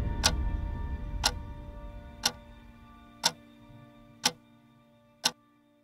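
A clock ticking once a second, six sharp ticks, over the fading tail of a score's low held notes.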